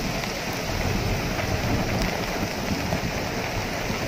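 Heavy rain pouring steadily onto a pond's surface and the surrounding trees and grass: a dense, even hiss.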